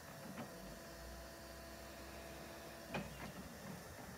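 Linde E16 electric forklift's hydraulic pump motor giving a faint, steady hum as the raised mast is worked. The hum stops about three seconds in, followed by a few light clicks.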